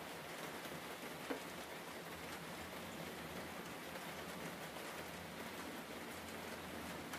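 A steady rain-like hiss with faint scattered ticks, and one sharper click about a second in.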